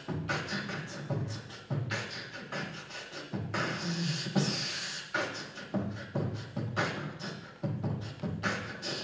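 Vocal beatboxing into a handheld microphone: kick-drum-like thumps and sharp snare-like hits in a steady beat.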